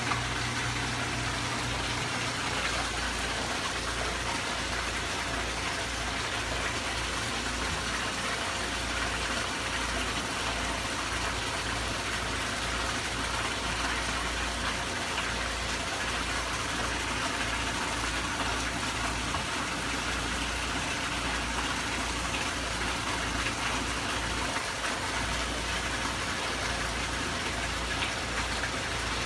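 Steady rush of water circulating through a fish holding tank, with a faint steady hum and a low, uneven rumble underneath.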